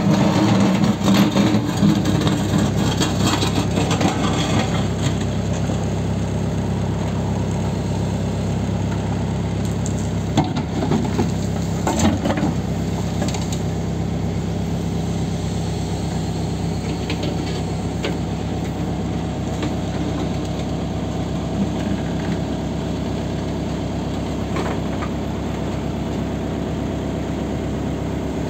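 Backhoe loader's diesel engine running steadily, busier for the first few seconds, with a couple of sharp knocks about ten and twelve seconds in.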